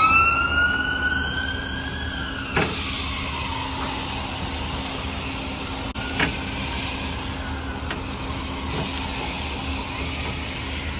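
An emergency-vehicle siren wailing in the background: a single tone that sweeps up at the start, then slowly falls and fades away over several seconds, over a steady hiss. Metal tongs click a couple of times against the grill grate.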